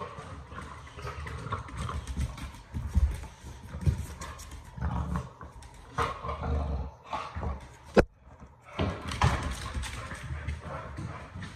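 A dog playing on a tile floor: its claws clatter and scrabble irregularly, with dull thumps of its body and toy, and a single sharp knock about eight seconds in.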